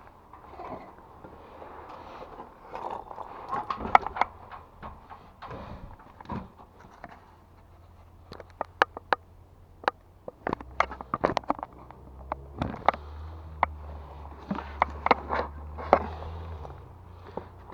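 A series of sharp clicks and knocks, irregular and bunched together, with a low steady hum that comes in about halfway and stops shortly before the end.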